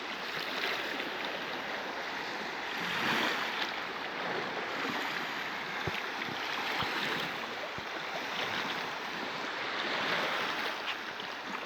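Small sea waves washing on the shore, a steady wash that swells a little twice.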